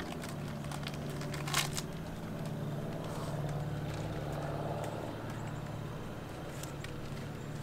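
A steady low motor hum, with one short crackle about one and a half seconds in.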